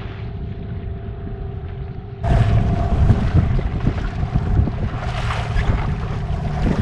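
A small boat's outboard motor running steadily, with wind buffeting the microphone; about two seconds in the sound jumps louder and rougher.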